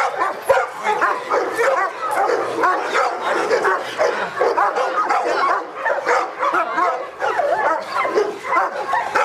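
Several dogs barking and yelping without pause, their barks overlapping into a continuous din.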